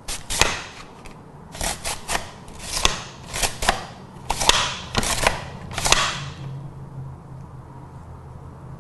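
Chef'n Pull'n Slice mandoline being pulled back and forth through a potato with its French fry blade. It makes a run of sharp cutting strokes, often in pairs, which stop about six seconds in.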